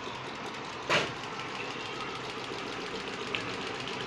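Homemade Stirling engine running and driving an old sewing machine by a string belt: a steady, fast mechanical clatter of flywheel, linkages and sewing-machine mechanism. A single sharp knock stands out about a second in.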